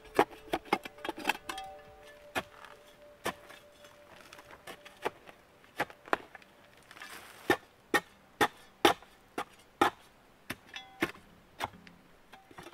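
Short-handled shovel chopping into hard, stony earth: sharp, uneven strikes of the blade into the soil, some coming in quick runs, with a brief hiss of loosened dirt about seven seconds in.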